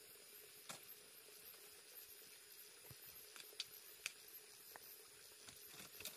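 Small wood fire crackling faintly: a handful of sharp, scattered pops over a quiet background hiss.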